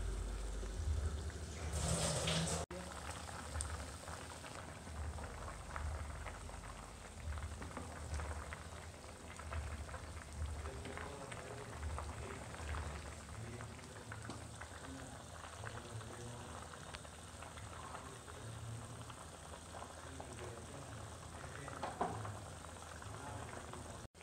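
A pot of curry liquid boiling hard, with a steady crackle of bubbles breaking over a low rumble. It is louder over the first couple of seconds, with a brief loud rush about two seconds in.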